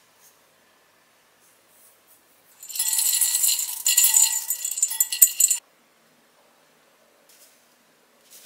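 Chocolate chips poured from a glass jar into a glass mixing bowl: a dense rattling clatter of chips hitting glass, with a faint ring from the bowl, lasting about three seconds and stopping abruptly.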